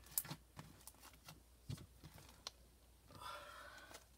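Faint scattered clicks and taps of handling noise close to the phone as things are reached for and moved, with a soft rustle near the end.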